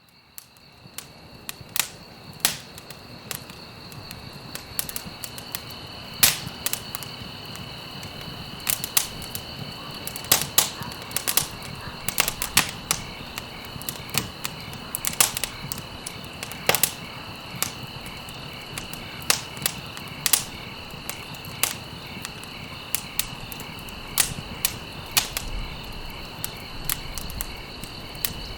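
Wood fire crackling, with irregular sharp pops and snaps over a low steady rush of burning. It fades in over the first few seconds, with a steady high-pitched trill underneath.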